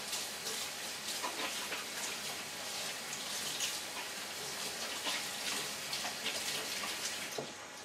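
A water tap running while hands are washed under it, with splashing; the water stops near the end.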